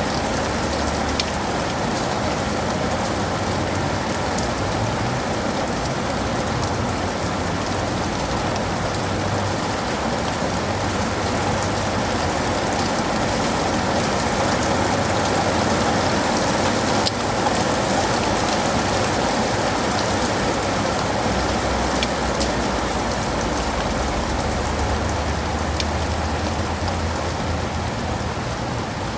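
Steady rain falling on leaves and pavement, a continuous hiss with scattered individual drop taps. A low rumble comes in underneath twice, in the first third and again near the end.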